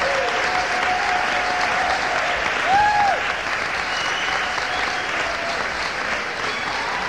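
Concert audience applauding and cheering, with a loud shout from the crowd about three seconds in.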